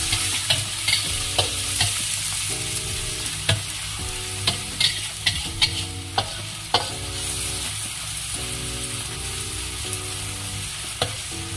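Chopped shallots, garlic, chillies, belacan and salted shark pieces sizzling in hot oil in a wok. A metal spatula stirs them, scraping and clacking against the wok every second or so.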